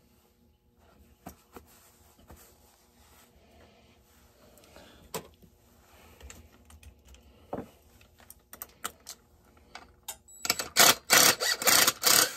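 Hand work on a chainsaw being taken apart: a few scattered clicks and knocks of metal and plastic parts, then near the end a loud burst of rapid rattling clicks as the saw's parts are handled.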